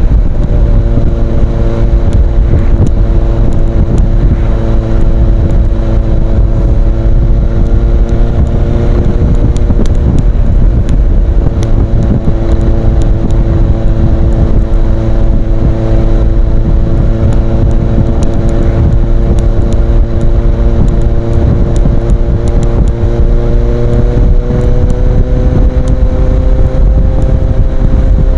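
Kawasaki Z800 inline-four engine running through an Ixil aftermarket exhaust, holding a steady engine speed, with the note climbing slightly near the end. Heavy wind noise on the microphone runs under it.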